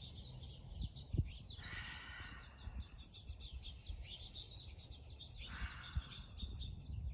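Small songbirds chirping in quick repeated notes, with two soft breathy whooshes, about two seconds and five and a half seconds in, over a low steady rumble of outdoor noise.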